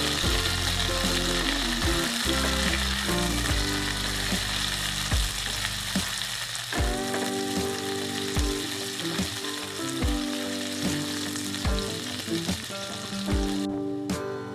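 Sliced onions sizzling in hot oil in a nonstick frying pan as a silicone spatula stirs them, a steady hiss that cuts off shortly before the end.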